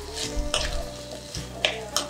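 Metal spoon stirring shallots and green chillies frying in oil in a clay pot, with a few sharp clicks of the spoon against the pot, over background music.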